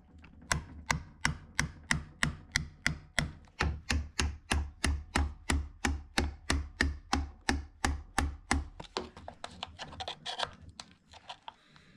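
A hammer striking a chisel in a steady rhythm, about three blows a second, as it chisels out glued-on wallpaper. Near the end the tapping stops and the chisel scrapes.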